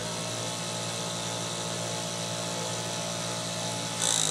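Juki feed-off-the-arm chainstitch sewing machine running steadily at full speed as a shirt seam is sewn, a constant high mechanical whine. A short hiss comes near the end, just before the machine stops.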